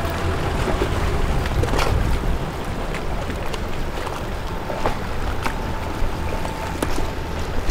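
Harbour waterfront ambience: a steady low rumble of boat traffic and wind, with scattered light clicks. A faint steady whine comes in about five and a half seconds in and lasts roughly two seconds.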